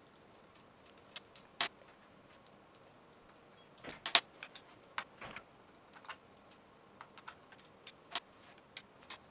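Scattered light metallic clicks and clinks as a screwdriver works the gear-case screws of a KitchenAid stand mixer and the loose screws are handled and set down on the table, coming thicker from about four seconds in, with the loudest click a little after that.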